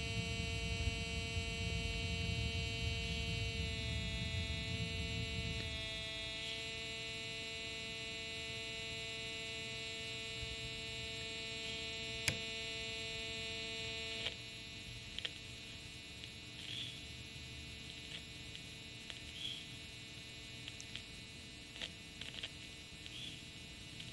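Home-built 'Pirate' pulse-induction metal detector giving a continuous steady tone from its speaker, a sign of a fault: the detector does not react to metal. The pitch steps down slightly twice, then the tone cuts off about fourteen seconds in, leaving only faint high chirps and ticks.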